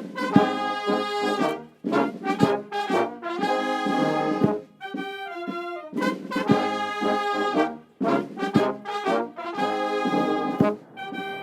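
Brass-led orchestral music with trombones and trumpets, played in phrases with short breaks.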